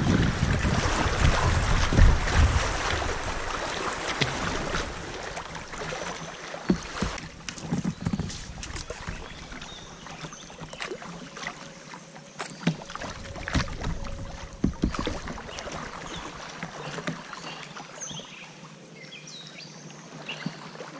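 Kayak running down a creek riffle: rushing water and splashing around the hull, with wind buffeting the microphone in the first few seconds. After that it settles to quieter moving water with scattered small splashes and drips, likely from paddle strokes.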